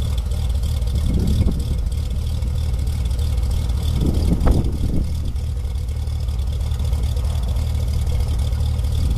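Steady low drone of a Cessna light aircraft's piston engine and propeller, unchanging, with a short louder sound over it about halfway through.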